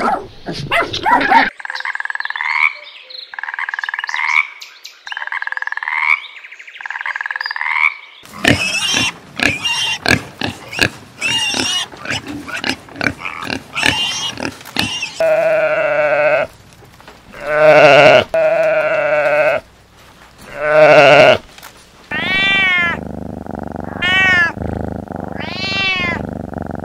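A run of animal calls: dog barks at the start, then four short rising calls, then a string of pig grunts and three long, loud wavering calls. High arching cat meows follow near the end.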